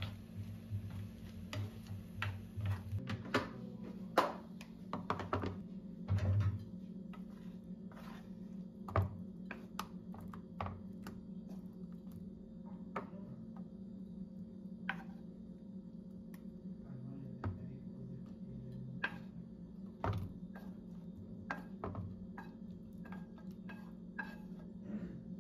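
Wooden spoon knocking, tapping and scraping against a granite-coated frying pan while stirring and then spooning a creamy chicken-and-mushroom sauce out of the pan, as irregular clicks and knocks, over a steady low hum.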